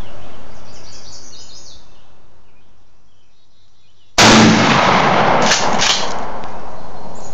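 A 20-gauge Remington 870 pump shotgun firing a slug a little past halfway: a sudden loud blast, followed by steady loud noise and two sharp clicks about half a second apart.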